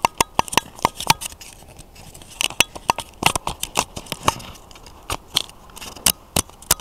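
Irregular sharp clicks and taps, sometimes several in quick succession, from fingers handling and knocking against the recording camera close to its microphone.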